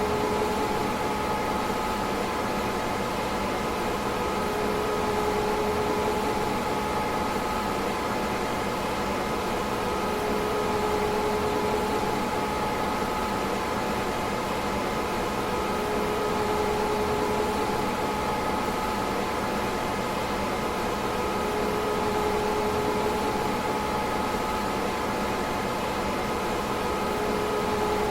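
DEC PDP-11/44 minicomputer running steadily: an even rushing hiss with a couple of steady whining tones, and a lower hum that swells and fades about every five to six seconds.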